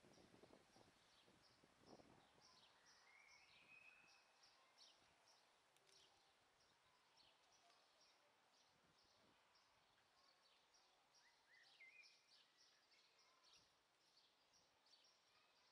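Near silence: faint outdoor ambience with a rapid faint ticking, about three ticks a second, and a couple of brief bird chirps.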